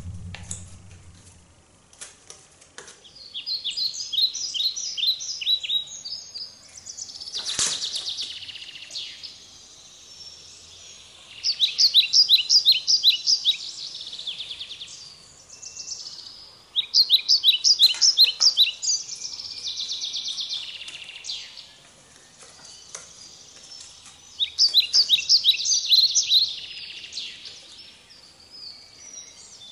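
A songbird singing in repeated high, rapid trilled phrases of two to three seconds each, with pauses of a few seconds between them.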